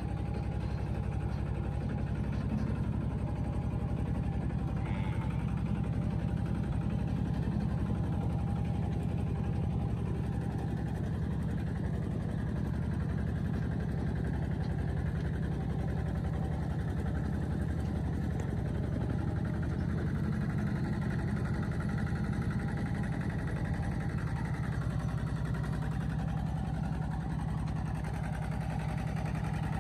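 Steady engine and road noise from a moving vehicle, a continuous low rumble.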